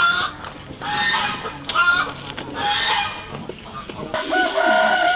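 Farmyard poultry calling: short calls about once a second, then a rooster starts a long crow about four seconds in.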